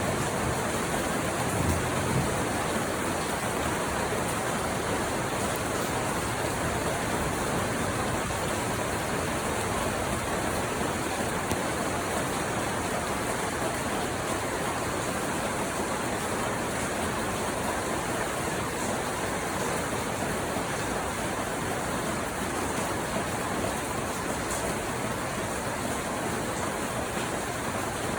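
Steady heavy rain falling, a dense, even hiss that holds level throughout.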